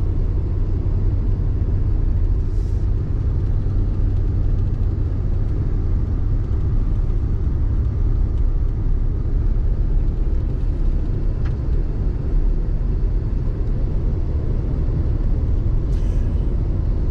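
Steady low rumble of a truck driving, heard from inside the cab: engine and road noise.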